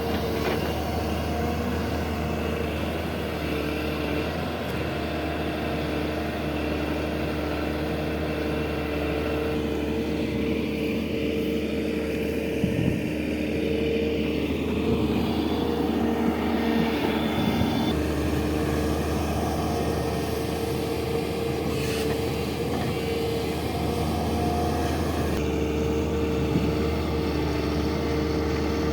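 Hydraulic excavator's diesel engine running steadily, with a couple of brief knocks, one about midway and one near the end.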